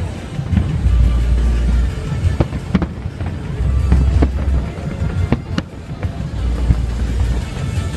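Fireworks shells bursting overhead, a dozen or so sharp bangs at irregular intervals, over music with a heavy bass pulse.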